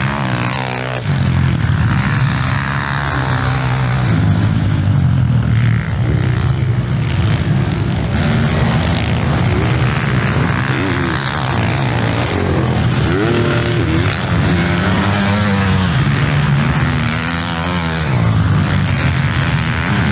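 Several motocross bikes racing on a dirt track, their engines revving hard and dropping off. The pitch rises and falls with each burst of throttle and each gear change.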